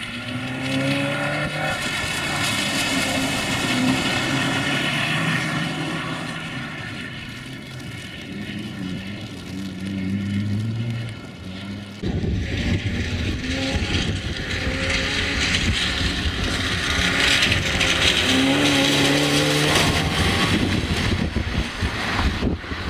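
A small hatchback rally car's engine revving hard and falling back again and again as it is driven around a wet tarmac course, over the hiss of spray from its tyres. The sound changes abruptly about halfway through to another stretch of the same run.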